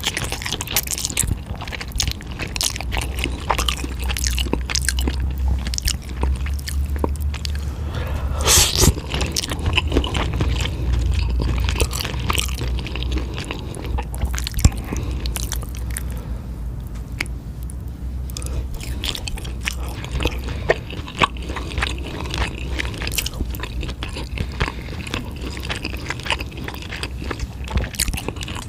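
Close-miked chewing and biting while eating eel and spicy fire-chicken noodles: a steady run of wet mouth sounds and small clicks, with one longer, louder wet sound about eight and a half seconds in.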